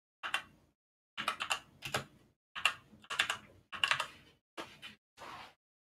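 Typing on a computer keyboard: quick runs of key clicks with short pauses between them, as a search query is typed in.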